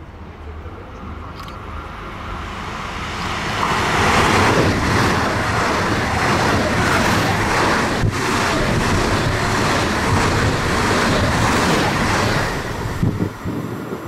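A train passing close by on the main line: the noise of wheels on rail and moving air builds over the first few seconds, stays loud for about eight seconds, then falls away near the end.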